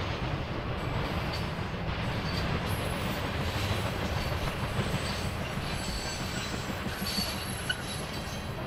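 Train rolling past on the rails, a steady rumble with faint, thin high squeals from the wheels coming and going.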